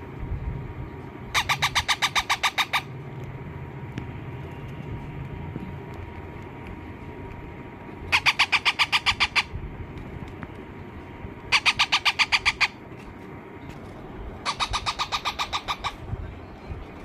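Baby parrot giving four bursts of rapid, evenly pulsed harsh calls, about seven a second, each burst lasting a second or so, the begging-style calls of a chick while it is eating. A steady low rumble runs underneath.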